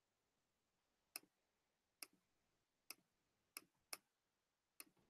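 Near silence broken by six faint, sharp computer clicks, roughly one a second and unevenly spaced, as points and lines are clicked into place on a computer.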